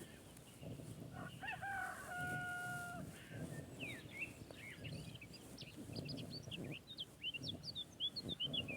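A rooster crows once, starting about a second in: the call rises, then holds level for over a second. It is followed by small birds chirping in many quick, high, short notes.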